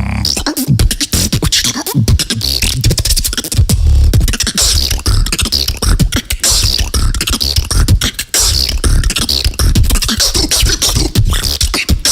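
Human beatboxing: a fast, dense stream of mouth-made bass kicks, snares and hi-hat clicks, with strong deep bass under rapid sharp strikes.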